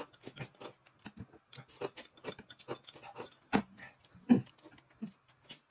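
Close-miked eating sounds: noodles being slurped and chewed, a string of short wet mouth smacks and clicks, with two louder slurps about three and a half and four and a quarter seconds in.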